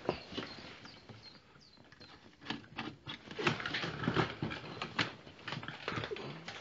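Clicks, knocks and rattles of a Maver fishing seat box's metal footplate frame being unscrewed, lifted off and handled. There is one knock at the start, a quieter stretch, then a busy run of short knocks and clatters from about halfway.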